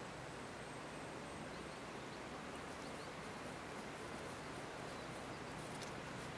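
Steady outdoor background hiss with a few faint, short high chirps and a single sharp click near the end.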